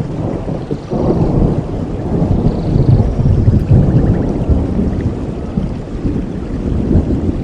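Rolling thunder: a long, deep rumble that swells about a second in and peaks around the middle, over steady rain.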